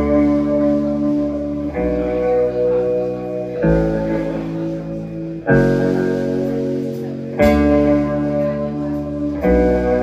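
Electric guitar played through an amplifier, striking a chord about every two seconds and letting each one ring.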